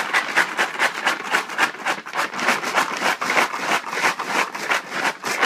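Popcorn kernels rattling and the paper bag rustling as the bag is shaken to mix the oil, salt and garlic powder: a fast, continuous rattle.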